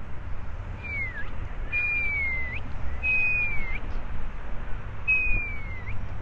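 Four high whistled calls, each a long, slightly falling note that ends in a quick upward flick, spaced about a second or more apart, over a low wind rumble.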